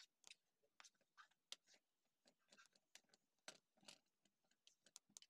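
Faint, irregular clicks and scrapes of a spoon stirring a flour mixture in a metal kadai.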